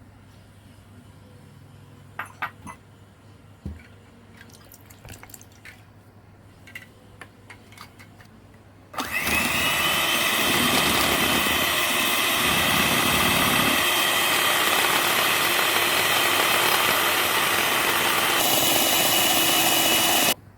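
A few light clicks and taps of kitchen utensils, then an electric kitchen mixer switches on and runs with a loud steady whine for about eleven seconds, changing pitch briefly before it cuts off suddenly.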